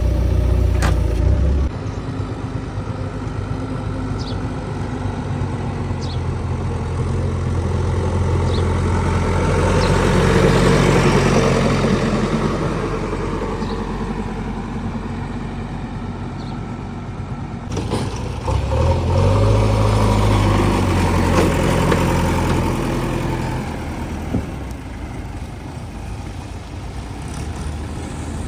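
Diesel engine of heavy machinery running, rising in load twice: once around ten seconds in and again around twenty seconds in, before settling back.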